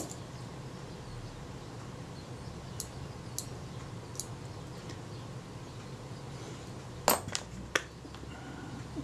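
Small metal clicks of fine tweezers working among the levers of a Synchro-Compur leaf shutter: three faint ticks, then three sharper clicks close together about seven seconds in, over a low steady hum.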